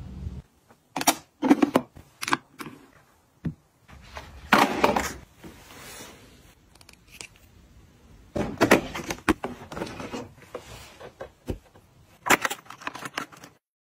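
Cosmetic bottles, jars and compacts being handled and set down on a hard surface: clusters of sharp clicks and taps with short rustling handling noise in between.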